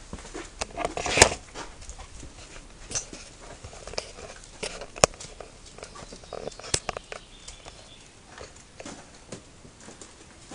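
Footsteps on a hard floor and irregular handling knocks and clicks, with a louder knock about a second in and a sharp click about five seconds in.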